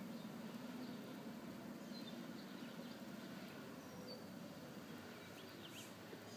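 Faint scratching of a small carving tool cutting lines into soft leather-hard clay, over a quiet steady hum, with a few faint bird chirps.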